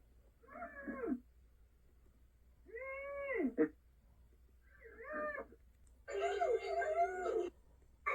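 Muffled, gagged cries of a cartoon mouse character's voice: four separate whimpering calls, each rising and then falling in pitch. The last, about six seconds in, is longer and fuller, and another starts at the very end.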